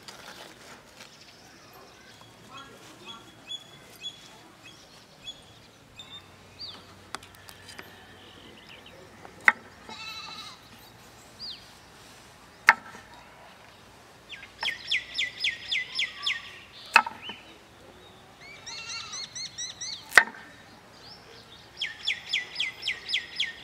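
A heavy cleaver chopping carrots on a wooden board: a few sharp, loud chops a few seconds apart. Between the chops, three bouts of a rapid, high-pitched pulsed animal call, each lasting a second or two.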